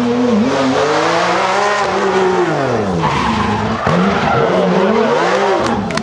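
Porsche 911 rally car's flat-six engine at full race effort, its note climbing under acceleration and falling away several times as the car slows and speeds up again, with a few sharp pops right at the end.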